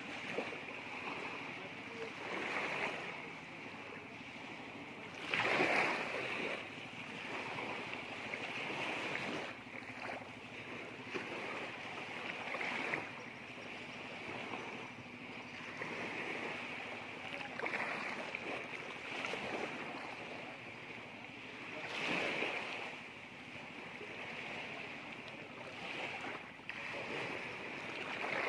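Small waves lapping and washing onto the beach, swelling and falling every few seconds, with the strongest washes about five seconds in and again about twenty-two seconds in.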